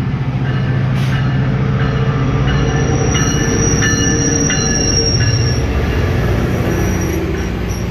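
GO Transit MP40PH-3C diesel locomotive and its double-deck coaches pulling into a station platform, a loud steady rumble. A high squeal of wheels and brakes comes and goes through the middle.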